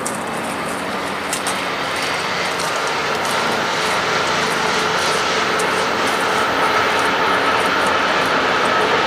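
Amtrak train passing, led by a Siemens SC-44 Charger diesel-electric locomotive with its engine running, followed by the rumble of passenger cars rolling along the rails. The sound is continuous and grows slightly louder.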